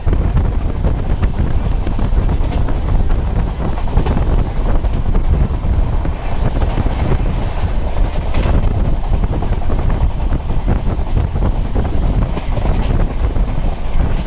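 Wind buffeting the microphone over the steady running rumble of a moving passenger train.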